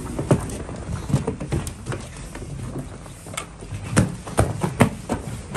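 Footsteps on a grated entrance mat: irregular sharp knocks and scuffs, a few close together about four seconds in.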